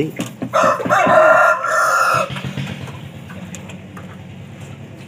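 A rooster crowing once, a long call starting about half a second in and lasting nearly two seconds, over a low steady engine hum.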